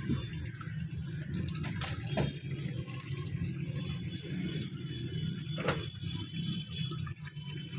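Used engine oil draining from a JCB's sump in a thin stream, trickling and splashing steadily into a plastic tub, with a steady low hum underneath.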